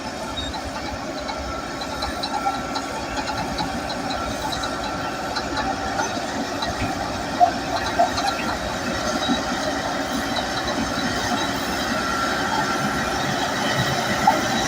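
Crawler bulldozer working: its diesel engine runs steadily while the steel tracks rattle with many small clicks, and there is one louder knock about halfway through.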